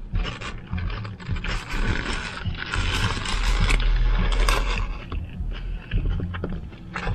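Chewing a mouthful of burger, then paper food wrappers or a paper bag rustling and crinkling as they are handled for a few seconds, loudest about three to four seconds in.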